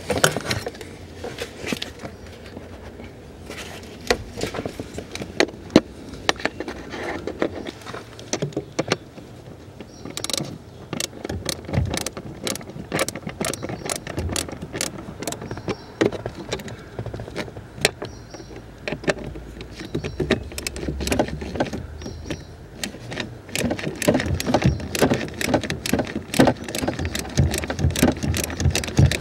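Small 1/4-inch ratchet with a Phillips bit clicking in rapid runs as screws are driven in to fasten a bracket, among knocks and rattles of plastic parts being handled. The clicking is thickest in the second half.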